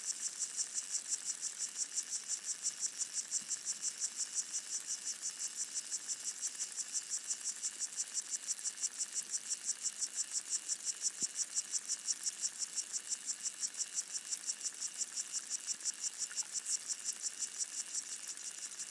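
Underwater chorus of pygmy water boatmen (Micronecta), a fast, even pulsing of high-pitched stridulation with several pulses a second, picked up by hydrophones in the pond water.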